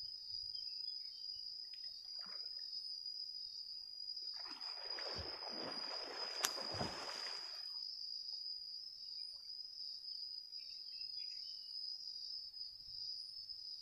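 Water splashing as a man plunges under chest-deep pond water, a burst of splashing about four seconds in that lasts some three seconds. A steady, high-pitched insect buzz from crickets runs throughout.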